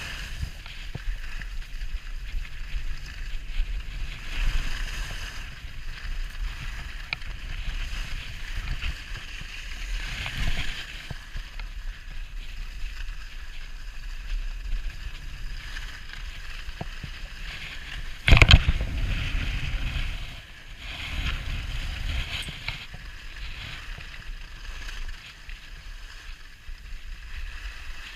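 Skis or a snowboard sliding and scraping over packed snow at speed down a steep run, a continuous hiss with a low rumble, and one loud thump about two-thirds of the way through.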